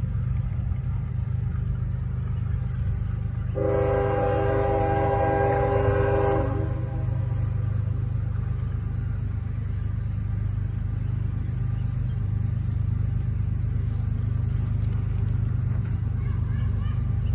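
A CSX diesel freight locomotive's air horn sounds one long blast of about three seconds, several notes at once, over a steady low rumble.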